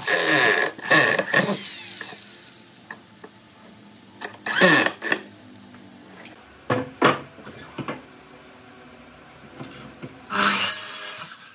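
Cordless drill driving screws into the corner of a wooden frame in two short bursts of motor whine, with a few clicks after. Near the end, a brief burst from a sliding compound miter saw cutting a board.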